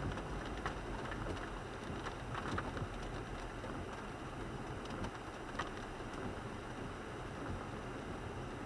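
Rain hitting the windshield and roof of a 1998 Toyota 4Runner as it drives on a wet road, heard from inside the cabin. Under it is a steady rumble of tyres and engine, with scattered single drops ticking sharply.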